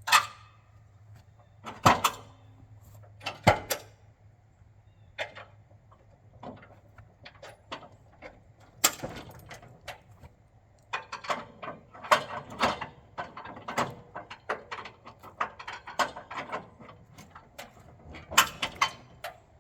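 Irregular sharp knocks and clanks, with clusters of smaller rattles and clatters, as parts of a manual band sawmill are handled and set up for sawing.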